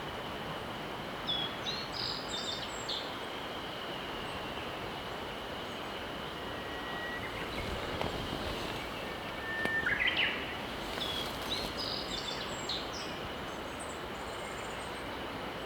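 Steady rushing of a clear mountain river, with a small songbird singing short twittering phrases twice, about a second in and again past the middle, and a few thin whistled notes in between.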